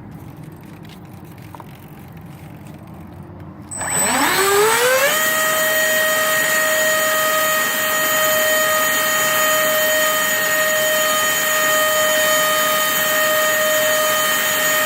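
Electric ducted-fan motors of an RC Airbus A320 model jet spool up about four seconds in, with a fast rising whine, and then hold a loud steady whine. The flight battery is already at its low-voltage warning.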